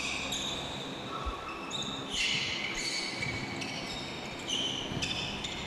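Athletic shoes squeaking on an indoor court floor as volleyball players move, in several short high squeaks at varying pitches. A single ball thump comes right at the start.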